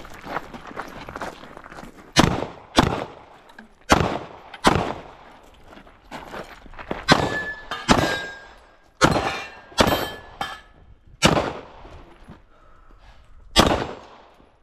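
A handgun fires about eleven shots in irregular pairs and singles. Several shots are followed by the metallic ring of steel targets being hit. Crunching footsteps on gravel come before the first shot.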